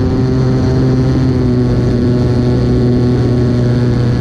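Model airplane's fuel engine and propeller running at high throttle during takeoff and climb: a loud, steady drone that holds one pitch throughout.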